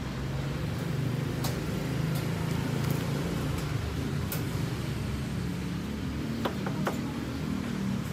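Steady low rumble of street traffic, with a few light clicks and taps, a small cluster of them shortly before the end.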